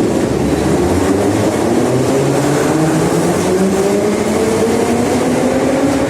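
Moscow metro 81-717.5M/714.5M 'Nomernoy' train running with a loud, steady rumble. Over it, the whine of its DC traction motors and gearing climbs slowly in pitch as the train picks up speed.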